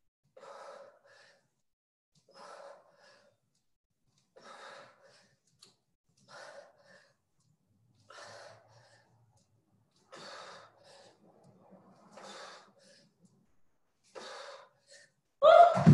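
A person breathing hard mid-workout, with a forceful exhale about every two seconds, one per rep. Near the end comes one much louder, voiced grunt.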